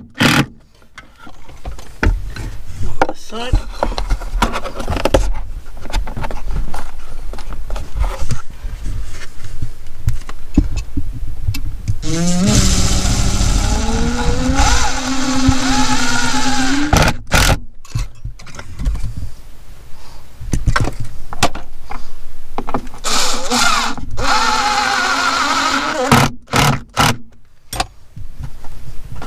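Cordless drill-driver driving screws into a wooden batten: two runs, each a motor whine that climbs in pitch and then holds steady, with knocks and clicks of handling in between.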